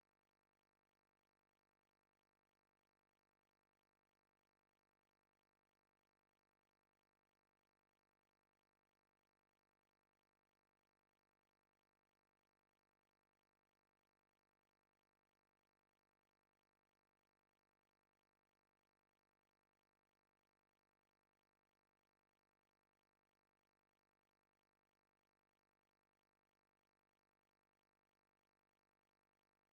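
Near silence: a steady digital noise floor with no audible sound.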